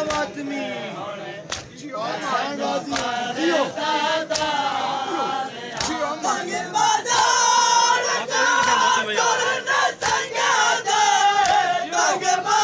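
A crowd of men chanting a noha (Muharram lament) together, several voices overlapping, punctuated by sharp slaps of hands on bare chests in matam, which come more often in the second half.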